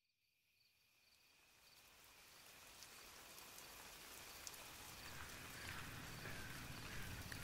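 Stormy night ambience fading in from silence: an even hiss of rain with scattered ticks of drops and a faint steady insect trill, slowly growing louder.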